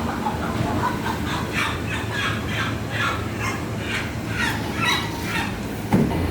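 Live chickens clucking and squawking, many short calls in quick succession, over a steady low hum.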